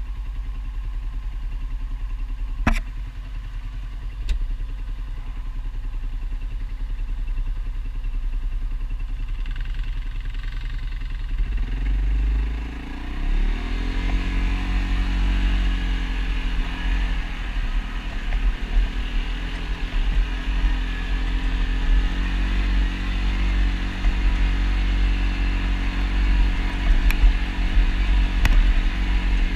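ATV engine running at low revs, then revving up about twelve seconds in and running on at a steady higher pace. Two sharp clicks come a few seconds in.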